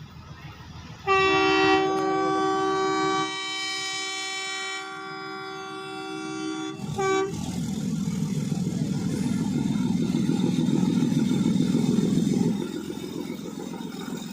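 Train horn sounding a long, loud multi-tone blast from about a second in, dropping in level partway, with a short extra toot at its end. The steady running rumble of the train follows.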